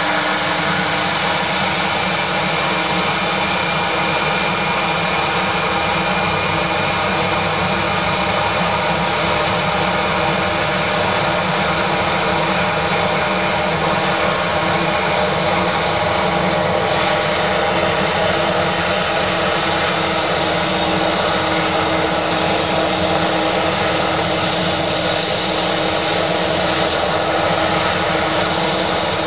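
Eurocopter EC145 helicopter's twin turboshaft engines running on the ground: a steady, loud turbine whine and rush, with a high whine climbing in pitch over the first dozen seconds and then holding.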